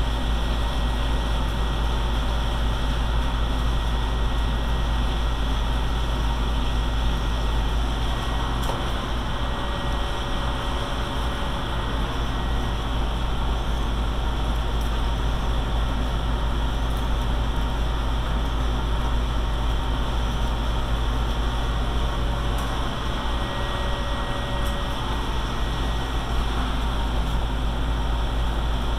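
Steady low rumble and hiss of running machinery, with a few faint clicks.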